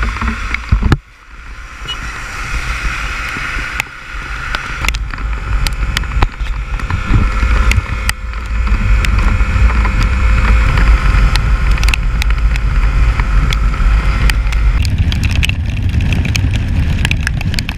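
Motorcycle riding at road speed in the rain: heavy wind noise buffeting the camera microphone, with many sharp ticks of raindrops striking the camera.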